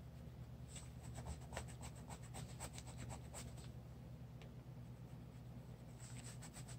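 Faint scratching of an oil pastel stick rubbed on a paper page in quick short strokes: a run of strokes from about a second in, a pause, then more strokes near the end.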